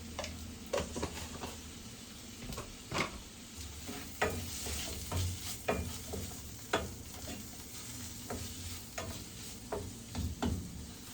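A utensil stirring onion, tomato and spice powders frying in a pan: irregular scrapes and knocks against the pan over a light sizzle.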